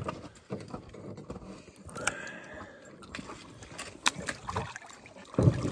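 Water splashing and trickling as freshly gutted trout are rinsed by hand in the shallows, with a couple of sharp knocks and a louder low thump near the end.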